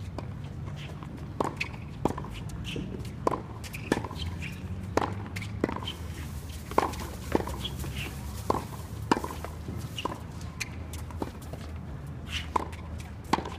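Tennis balls being hit back and forth in a fast practice rally on a hard court: sharp racket pops, about two a second, over a steady low hum.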